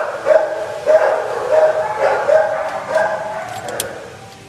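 Shelter kennel dog barking over and over, about one bark every two-thirds of a second, dying away about three seconds in; a few sharp clicks follow near the end.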